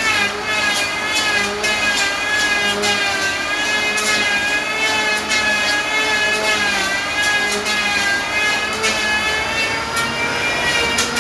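Electric hand planer running at a steady high-pitched whine as it shaves the top of a solid trembesi (rain tree) wood slab. Its pitch sags briefly and recovers several times as the blades bite in under load.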